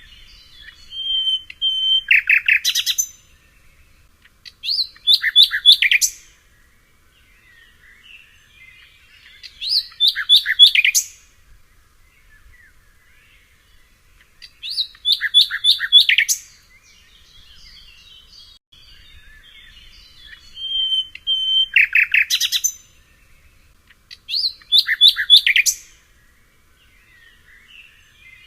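A songbird singing loud, rapid phrases of quick falling notes over and over, one phrase every four to six seconds, with softer twittering and chirps in between.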